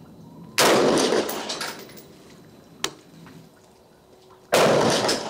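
Two rifle shots from a Norinco CQA 5.56 mm AR-15 (M4 copy), about four seconds apart, each followed by a trailing echo. A faint click falls between them.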